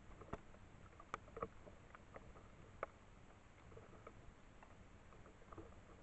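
Faint, scattered crackling and rustling of dry grass and leaves as a raccoon dog forages along the ground, with a few sharper clicks in the first three seconds.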